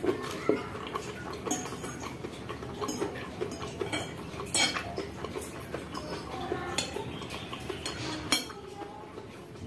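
Metal fork scraping and clinking against a ceramic bowl while twirling fried instant noodles, several sharp clinks scattered through, with chewing between them.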